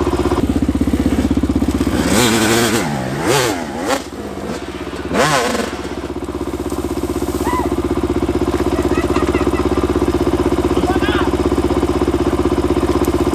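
Dirt bike engine revved in several quick rising-and-falling bursts in the first half, over a steady idling engine that runs throughout.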